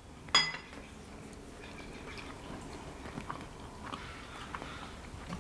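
Quiet chewing of a mouthful of meatball, with one short sharp sound about a third of a second in and a few faint light ticks after it.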